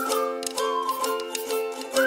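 Background music: plucked strings strummed in a steady rhythm under a high melody that slides between notes.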